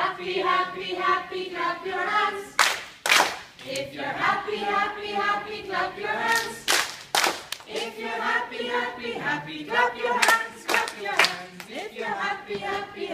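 A group of adults singing a song together, with sharp handclaps, mostly in pairs, every few seconds.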